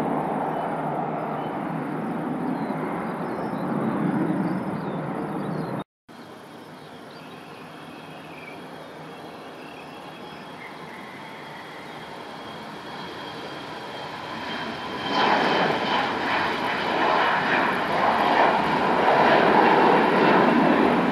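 Airbus A321 jet at takeoff power, a steady loud roar that cuts off abruptly about six seconds in. Then a Bombardier CRJ-900 regional jet on its takeoff roll, its rear-mounted engines at full thrust: the roar grows steadily louder with a faint high whine over it, and jumps louder about fifteen seconds in.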